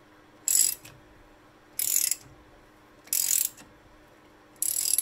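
Scissor jack being cranked up under a car's rear hub, lifting the suspension: four short, high-pitched bursts of noise, one about every second and a third.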